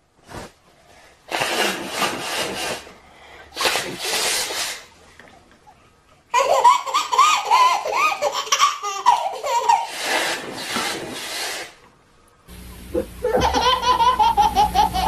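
High-pitched laughter coming in several fits, breathy at first and then a run of rising-and-falling squeals about six seconds in. After about twelve seconds a different recording with a steady hum starts, carrying quick, even pulses of laughter.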